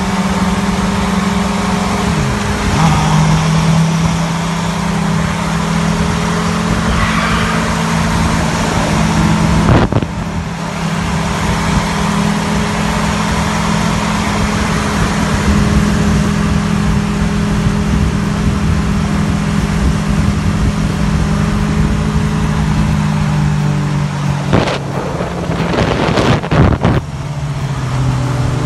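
A vehicle engine running steadily, its pitch holding level for long stretches, with a brief dip about ten seconds in and an uneven, broken stretch a few seconds before the end.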